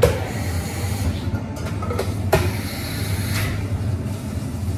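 Espresso bar at work: a steady low hum of running equipment, with a short hiss at the very start and another hiss with a couple of clinks of cups or metal about two to three seconds in.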